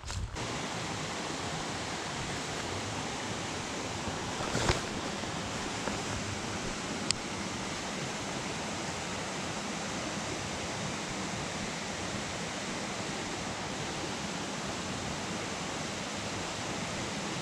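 Creek water rushing steadily over riffles, an even hiss with no let-up. A brief knock sounds about five seconds in, and a sharp tick a couple of seconds later.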